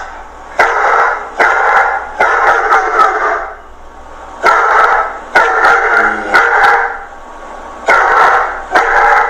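Dog barking repeatedly, loud barks about a second apart in short runs with brief pauses between.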